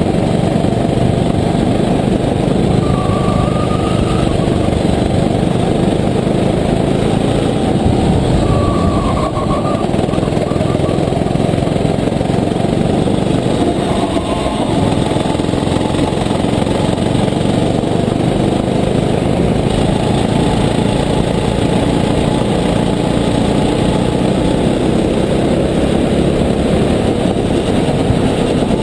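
Onboard sound of a Sodi rental kart's engine running hard at racing speed, loud and continuous, its note dipping briefly twice.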